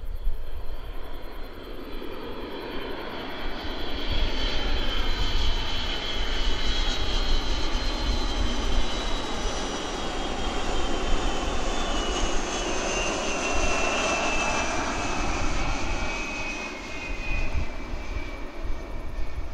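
Boeing KC-135R Stratotanker passing close on final approach, its four CFM56 (F108) turbofans giving a rushing jet roar with a high whine that slowly falls in pitch as it goes by.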